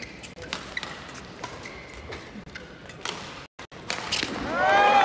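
Badminton rally: sharp racket strikes on the shuttlecock and footfalls on the court mat. Near the end comes a louder run of shoe squeaks as a player lunges.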